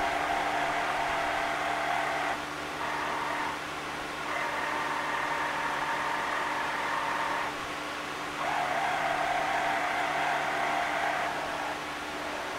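Excalibur Phantom Force self-moving chess board's motor-driven magnet carriage whirring under the board as it slides pieces into their setup positions. It runs in stretches of about three seconds with short pauses between.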